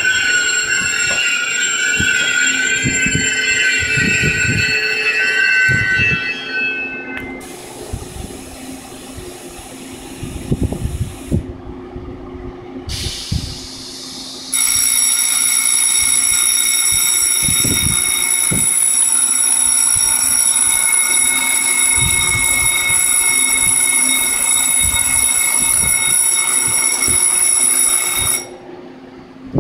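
Taiwan Railways EMU800 electric commuter train squealing to a stop, the wheel and brake squeal fading out after about seven seconds. About halfway in, a steady high-pitched ringing tone starts, runs about fourteen seconds and cuts off suddenly.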